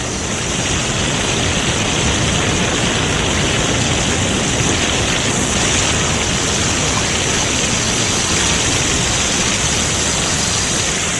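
Fire hoses spraying water: a steady, even rushing hiss that does not change for the whole stretch.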